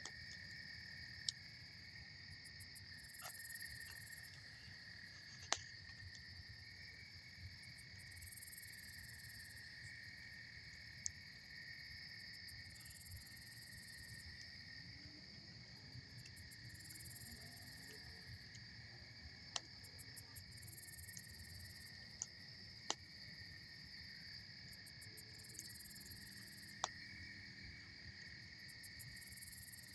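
Campfire burning with about six sharp, isolated pops, over a steady chorus of insects trilling and a low rush beneath.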